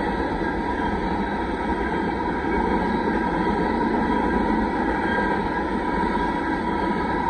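Grain hopper cars of a passing freight train rolling over the rails: a steady rumble of steel wheels on track.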